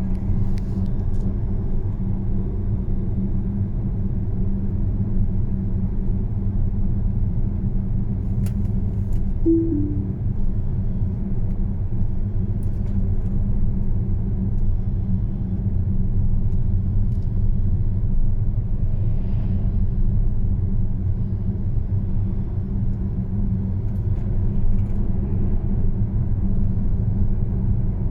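Rear drive unit of a Tesla Model S P85D giving off a steady low rumble with a constant hum, the noise of a defective drive unit.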